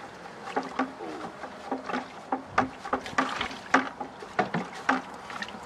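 Water sloshing and splashing in a plastic bucket as it is stirred, with irregular splashes and knocks a few times a second: urea and molasses being mixed into water for a straw silage treatment.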